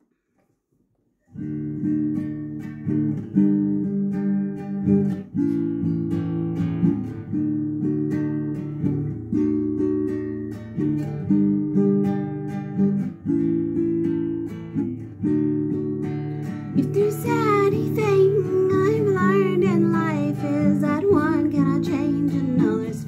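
Acoustic guitar playing a chord-based intro, starting about a second in. A woman's voice begins singing over it about three-quarters of the way through.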